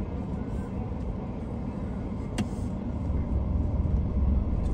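Steady low rumble of motor vehicles waiting or idling, growing somewhat louder after about three seconds, with one sharp click about two and a half seconds in.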